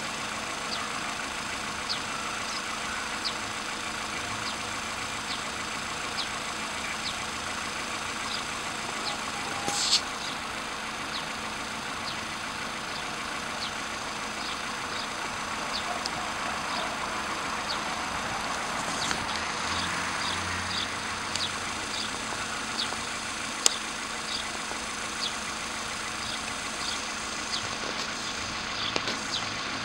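Warmed-up 1.6-litre CFNA petrol engine of a VW Polo sedan idling steadily, with a light tick repeating about twice a second and a louder click about ten seconds in. The owner suspects the engine of knocking, though a dealer found nothing wrong.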